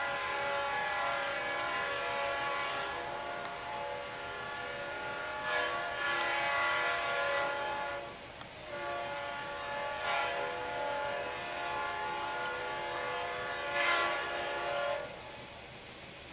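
Leslie RS-5T five-chime air horn on an approaching CSX freight locomotive, sounded as a chord in two long blasts: the first held for about eight seconds, then after a brief break a second that stops about fifteen seconds in. The chord swells louder several times along the way.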